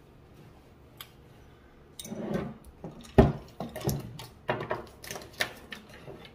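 Lip smacking and wet mouth clicks: a single click about a second in, then a quick irregular run of smacks from about two seconds on, the loudest just after three seconds.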